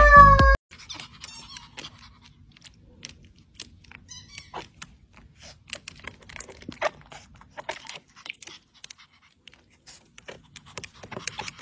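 A husky's rising howl over a pounding music beat cuts off half a second in. Then come quiet, scattered light splashes and taps as a dog paws at a ball floating in a plastic tub of water.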